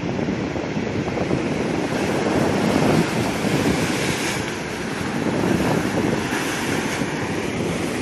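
Rough sea surf breaking and splashing against shoreline rocks, a continuous churning wash that swells and eases in loudness.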